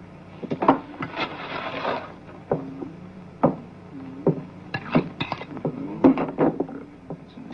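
Metal spoon clinking and scraping against a pan and plate of beans: a string of sharp knocks, with a longer scrape about a second in.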